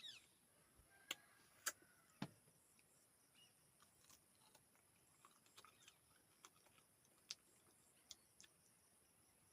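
Faint, close-up eating sounds: scattered crisp clicks and smacks of chewing. The loudest few come in the first two and a half seconds, another sharp one comes past the middle, and softer ticks fall in between.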